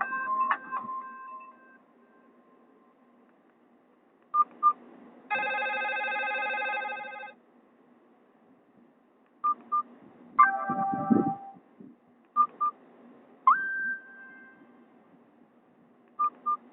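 Mobile phone keypad beeps, short and paired, repeated several times with quiet gaps. Between them, brief electronic snippets of ringtones play. A ringtone fades out in the first second and a half.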